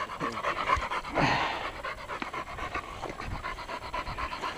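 English Springer Spaniel panting rapidly after working, with a brief louder rustle about a second in.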